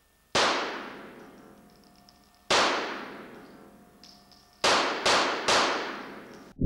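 Five pistol shots from a semi-automatic target pistol: two spaced about two seconds apart, then three in quick succession near the end. Each shot rings on in a long echo off the hard walls of an indoor range.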